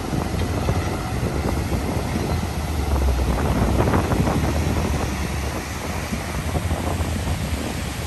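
Wind buffeting the microphone: a gusty low rumble over a steady rush of air, strongest about three to four seconds in.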